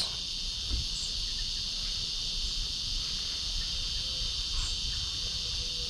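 Steady high-pitched chorus of insects trilling without a break.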